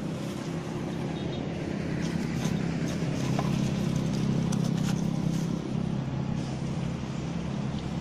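A motor vehicle's engine running with a steady low drone, swelling to its loudest about halfway through and easing off towards the end, with a few faint ticks above it.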